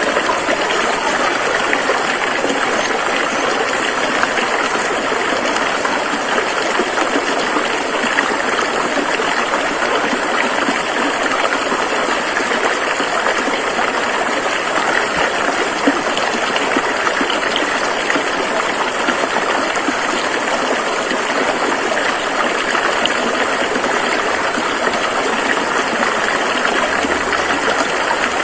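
A river flowing over rocks: a steady, unbroken rush of water with splashing and gurgling.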